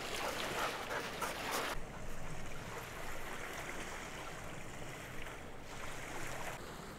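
Steady outdoor wind noise on the microphone, with a change in tone about two seconds in.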